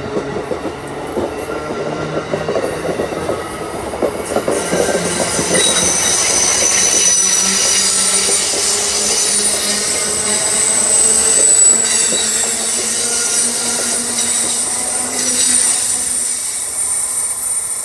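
Amtrak Northeast Regional coaches rolling past, their wheels clattering over the rails, then a high-pitched wheel squeal on the curved track that sets in about four seconds in and carries on until the last cars have gone.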